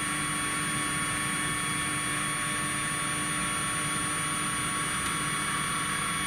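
Stepper motors of a 3018 CNC router driving the carriage in a continuous jog at 1,000 mm per minute: a steady, even whine made of several held pitches.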